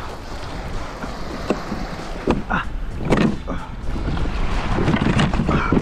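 Wind buffeting the microphone and water moving against a kayak hull, with a few short knocks and clicks from handling the rod and reel while fighting a fish.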